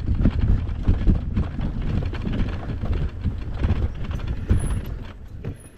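Wind buffeting the microphone, a heavy uneven rumble with irregular thumps, fading out near the end.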